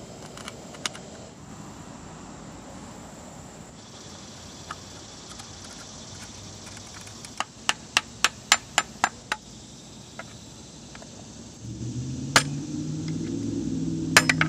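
Light metallic taps, about eight in quick succession, then a couple more, as the metal retainer clips that hold the power steering reservoir to the pump are tapped back into place. A low hum comes in near the end.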